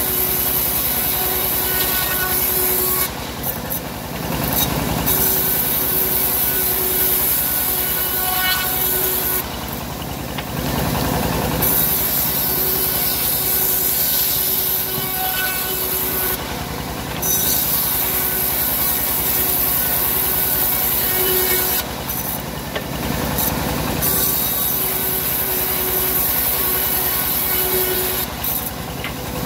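Homemade band sawmill ripping teak: the hissing rasp of the band saw blade cutting wood runs for several seconds at a time. It drops back briefly about five times, as each cut ends and the next board is fed, over the steady hum of the running mill.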